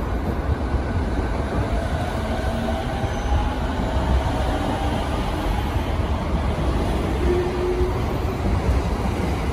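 JR 209 series 500-subseries electric commuter train pulling out of a station, wheels rumbling on the rails as it picks up speed, with a faint whine rising in pitch as it accelerates.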